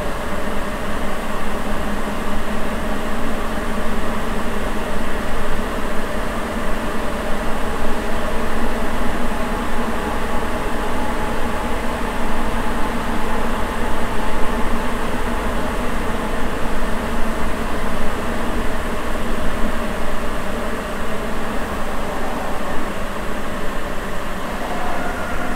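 Interior running noise of a Sapporo Municipal Subway 9000-series rubber-tyred train cruising through the tunnel between stations. It is a loud, even rumble with several steady tones held in it, and it is steady throughout.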